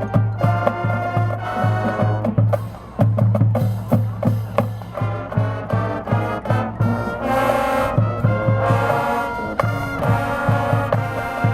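High school marching band playing: brass section with trumpets and trombones over percussion, with a steady low pulse of bass notes underneath.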